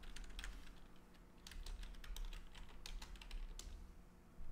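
Typing on a computer keyboard: a few keystrokes at first, then a longer run of quick key clicks from about a second and a half in.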